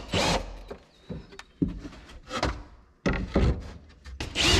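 Plywood panel being knocked and scraped into place over a coop's door opening: several separate wooden thunks and scrapes.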